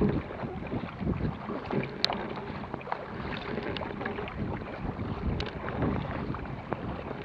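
Paddle strokes and water splashing and slapping against the hull of a Vajda Supersonic K1 racing kayak on choppy water, with wind buffeting the microphone.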